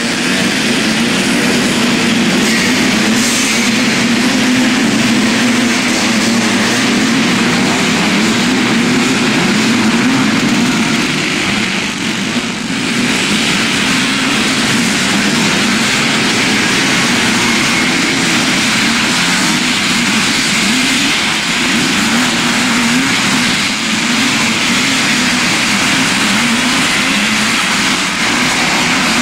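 Several motocross bike engines racing together at high revs, their pitches rising and falling as riders open and close the throttle.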